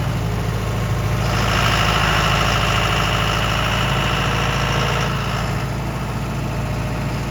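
Farm tractor engine running steadily with a low rumble. For about four seconds in the middle a higher whine rides on top of it.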